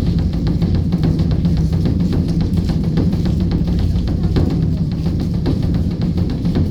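A large drum beaten in quick, continuous strokes over a steady low hum.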